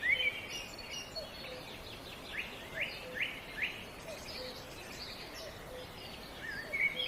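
Several songbirds chirping and calling over a steady outdoor noise bed, with a run of four quick rising notes a little over two seconds in. A faint low note repeats about once a second underneath.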